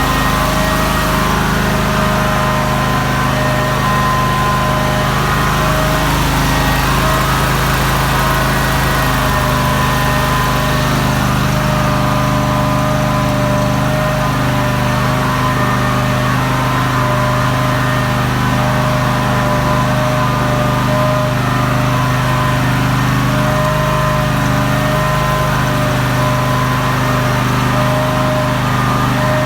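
Generator set's GX620 V-twin engine running steadily at a constant speed under test, with an even, unchanging tone.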